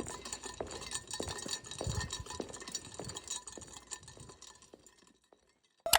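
A series of light, irregular clicks and clinks, about two or three a second, that thin out and stop near the end.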